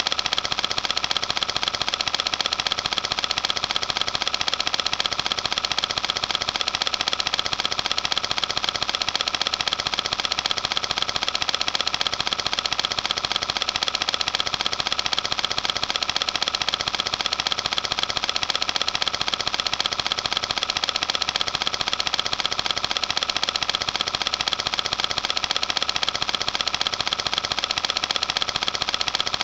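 Film projector running: a steady, rapid mechanical clatter as the film is pulled through.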